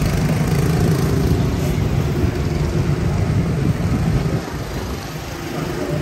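Steady low rumble and hiss of a moving PeopleMover ride train running along its elevated track, easing a little near the end.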